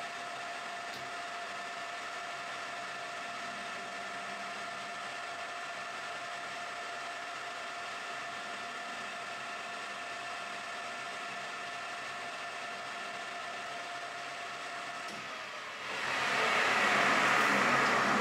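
1980s Colchester manual metal lathe running with a steady whine while turning a small part held in its chuck. About three seconds before the end the whine stops and a louder rushing noise takes over as the chuck slows down.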